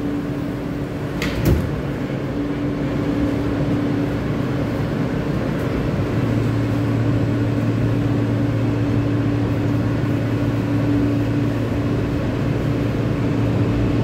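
R160 subway car doors sliding shut with a sharp knock about a second and a half in, over the car's steady hum. About six seconds in, a lower steady tone joins as the train's propulsion starts and it pulls out of the station.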